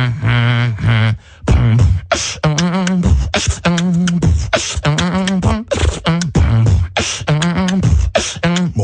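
Beatboxing: a mouth-made beat of sharp kick- and snare-like clicks alternating with hummed bass tones that waver in pitch, in a steady rhythm.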